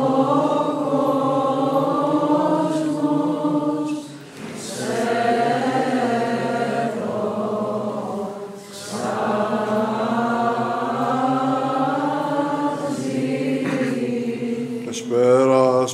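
Byzantine chant: long, drawn-out melismatic phrases sung over a steady held low drone (ison), with short breaks between phrases about four and eight seconds in.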